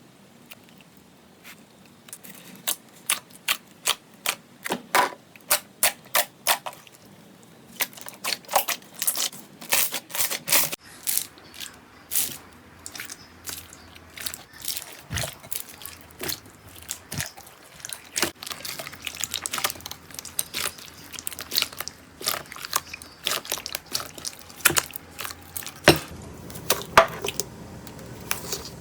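Slime being squeezed and poked by hand, making sharp pops and crackles. The pops come about twice a second at first, then turn into a denser, irregular crackling.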